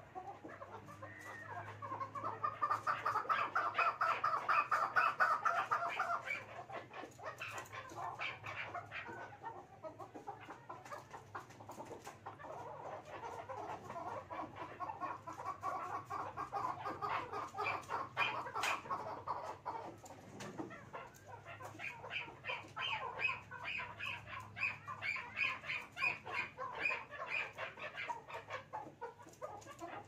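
Chukar partridges calling: long runs of rapid, repeated clucking notes that swell and fade, loudest a couple of seconds in, with further runs in the middle and near the end.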